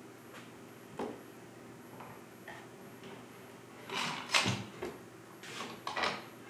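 Metal bar clamps being released and lifted off a glued-up table: a sharp click about a second in, then clamp jaws scraping and clattering twice, about four seconds in and again near the end.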